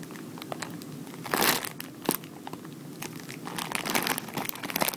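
Clear plastic bag crinkling as hands turn over the bundle of alligator-clip wires inside it: irregular crackles, loudest a little over a second in.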